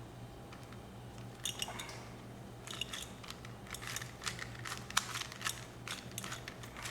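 Plastic Rubik's Cube being twisted by hand: a run of quick, irregular clicks and clacks as the layers turn, starting about a second and a half in. A steady low hum sits underneath.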